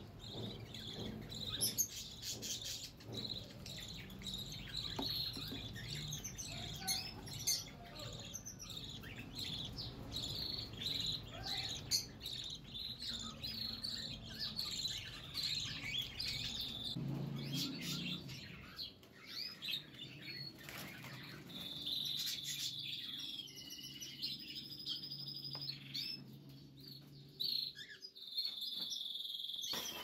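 Small cage birds chirping and twittering over and over, with a few held whistled notes near the end. Light clicks and knocks come now and then as the wooden nest box is handled.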